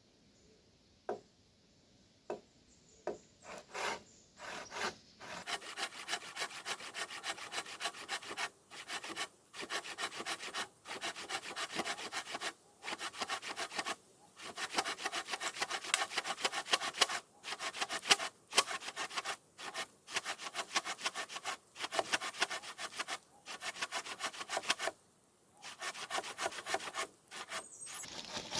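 Saw cutting through wood in quick back-and-forth strokes, in runs of one to three seconds with short pauses between them. A few separate knocks come first.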